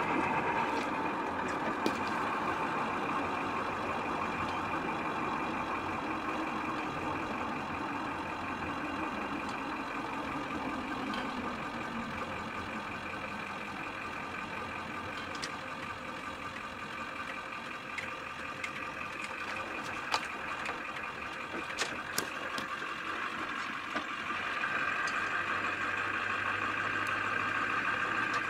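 Ford F-250's Powerstroke diesel engine running as the truck is driven. Its pitch drops about ten seconds in and picks up again near the end, with a few sharp clicks in between.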